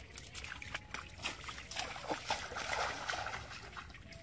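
Wet mud and shallow water squelching and splashing under feet and a prodding stick: a run of short wet clicks, with a louder sloshing stretch around the middle.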